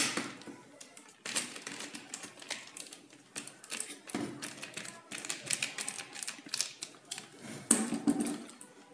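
Screwdriver turning a screw out of the plastic end cap of a laser toner cartridge: a run of small irregular clicks and scrapes, with a louder knock near the end as the screwdriver is set down on the table.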